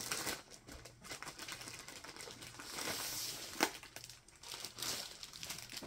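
The plastic protective covering on a rolled diamond-painting canvas crinkling as the canvas is handled and unrolled, with a few sharp crackles.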